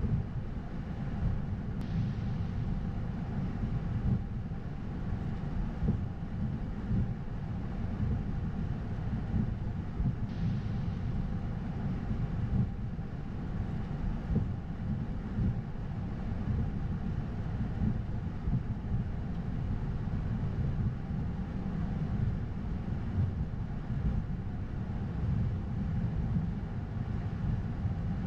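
Steady low rumble on the flight deck of an Airbus A220-100 taxiing after landing, its engines at idle, with a faint steady hum above it. A short, faint hiss comes twice, about two and ten seconds in.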